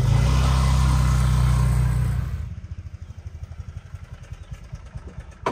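An engine running close by, loud for about two seconds and then dropping to a quieter rumble, with a sharp click at the very end.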